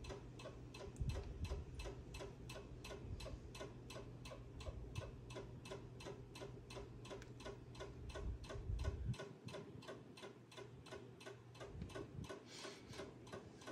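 Steady, even ticking, about four ticks a second, like a mechanical clock, over a faint low hum.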